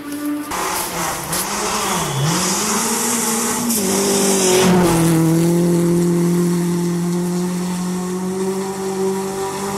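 Rally car engine on a snow stage: the revs dip and rise several times as the car comes through, with a hiss of snow and ice thrown up by the tyres as it passes close about four seconds in. For the last five seconds the engine holds a steady high note.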